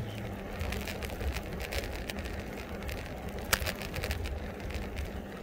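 Steady low rumble of wind and road noise while riding an e-bike, with light scattered rattles and one sharp click about three and a half seconds in.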